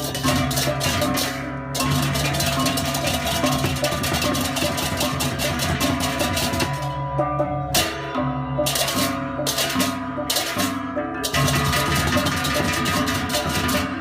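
Music with fast, dense percussion over a bass line that steps from note to note; the high percussion drops out briefly about seven seconds in.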